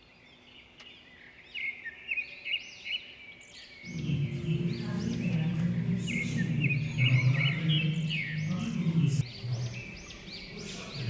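Birds chirping and twittering over and over, many short calls. About four seconds in a low steady drone comes in under them and runs on.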